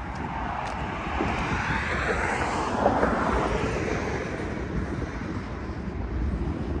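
Steady low rumble of passing traffic, with a rushing swell that builds and fades about two to three seconds in as a vehicle goes by. A freight train of covered hopper cars is rolling past on the track.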